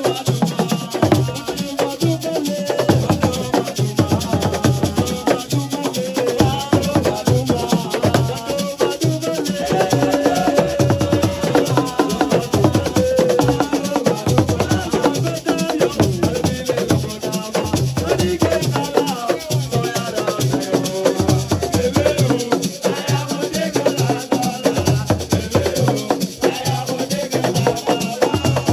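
Live assiko music: hand drums and shaker rattles playing a fast, dense rhythm, with voices over it.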